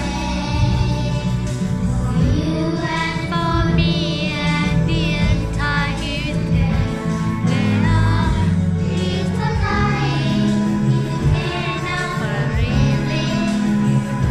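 Children singing a song through microphones, with steady musical accompaniment underneath.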